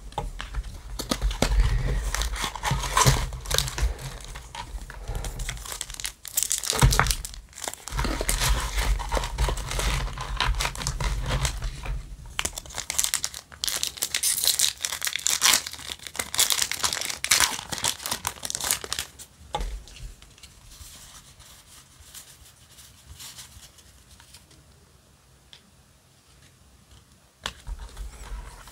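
Foil Yu-Gi-Oh! booster pack wrapper crinkling and tearing as it is ripped open by hand. The crackling is dense for most of the first two-thirds, drops to faint handling for several seconds, and picks up again near the end.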